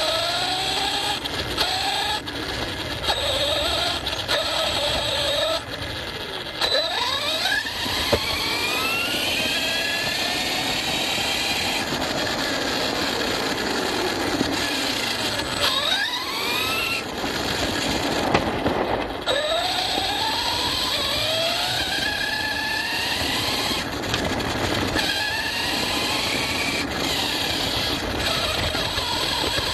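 ARRMA Fireteam 6S RC car's brushless motor whining, its pitch sweeping upward several times as the car accelerates and falling away between bursts, over steady noise of the tyres on rough off-road ground.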